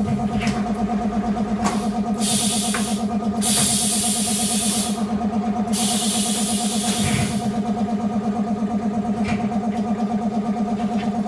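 Automatic glass cutting machine running: a steady, fast-pulsing mechanical hum, with three bursts of hissing air a couple of seconds in and a few sharp clicks.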